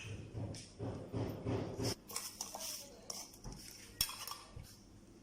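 Dishes and cutlery clinking and knocking as they are gathered and stacked by the sink, with a cluster of clatters in the first two seconds and one sharp knock about four seconds in.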